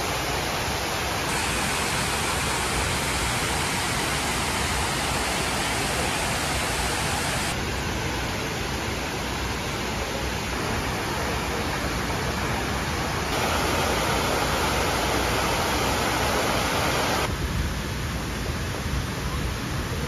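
Steady rushing of water falling down the walls of the 9/11 Memorial's waterfall pools, an even wash of noise that changes abruptly in tone four times.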